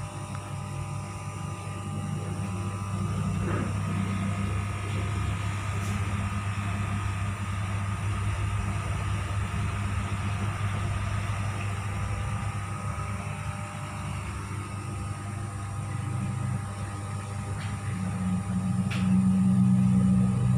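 Steady low mechanical hum with a rumble, louder for the last few seconds.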